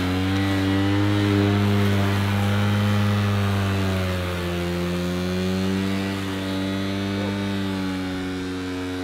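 EGO 56V Select Cut cordless mower's brushless motor spinning its four-blade cutting stack at full speed, a steady hum. It sags in pitch about four seconds in and again near the end as the blades cut thick grass at a low 32 mm cutting height.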